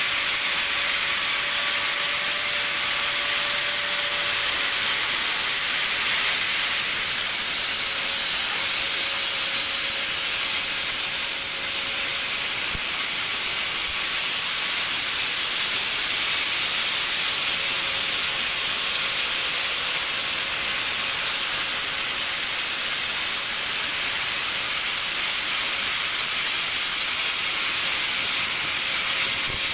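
CNC router spindle running steadily while milling polystyrene foam: a continuous hiss with a faint high whine.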